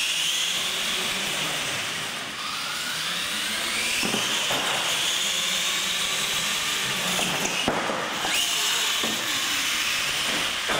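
Electric R/C monster trucks racing, their motors and gearboxes giving a high whine that climbs in pitch as they accelerate, holds, then drops briefly about eight seconds in. A few short knocks sound over the whine.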